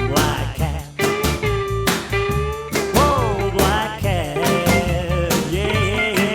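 Instrumental rock music with a steady drum beat, a bass line and bending electric guitar lines.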